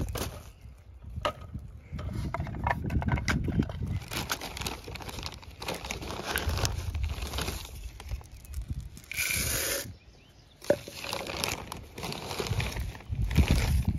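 Plastic birdseed bag crinkling and rustling as black sunflower seeds are poured and patter into the metal-lined tray of a wooden hopper bird feeder, with scattered clicks of handling.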